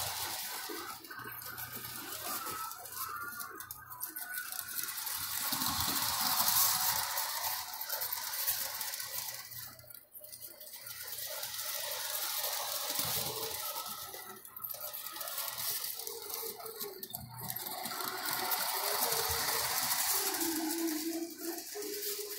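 Electric model train running on metal track: a steady whirring and rattling of motor and wheels that swells and fades as the train goes round, dropping away briefly about halfway.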